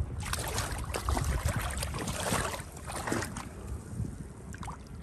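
Shallow seawater sloshing and splashing as someone wades through it and reaches a hand down into the water to feel along the muddy bottom. It is busiest at the start and eases off later.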